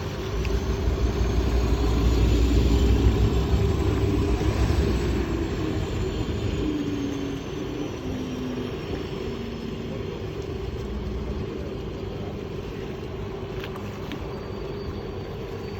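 Boat engine rumble at sea, swelling to its loudest about three seconds in, then easing off to a steadier, quieter drone.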